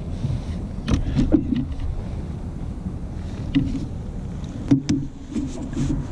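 Knocks and bumps of gear and a landing net being moved against a kayak's hull as a person shifts in the seat, over a low, steady rumble.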